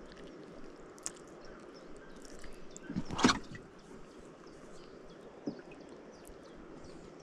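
Quiet water and handling sounds around a small fishing boat while the live bait is changed: scattered small clicks and taps, with one short louder splash about three seconds in.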